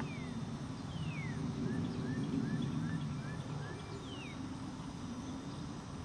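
Wild birds calling: a few clear whistles sliding down in pitch and a quick run of about six short rising notes, over a steady low rumble and a faint high insect drone.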